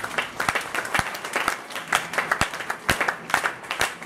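Audience applauding, with one person clapping close by, the near claps standing out as loud sharp slaps over the rest.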